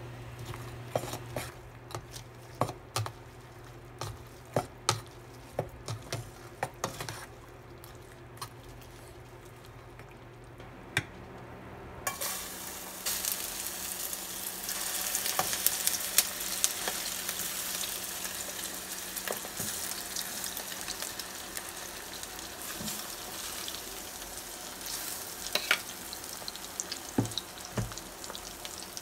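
Metal tongs stirring oysters in egg batter in a stainless steel bowl, with many sharp clicks against the metal. About twelve seconds in, the battered oysters go into a hot frying pan and sizzle steadily, with a few more clicks near the end.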